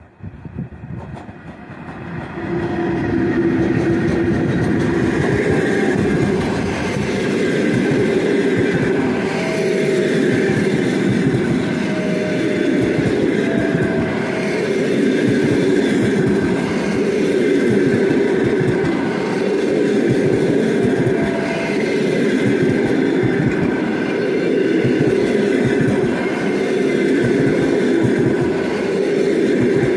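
EP1 electric locomotive and the coaches of a passenger express train passing close by at speed. The steady loud rumble and rapid clatter of wheels on the rails builds over the first two seconds as the locomotive arrives, then holds as the coaches run past.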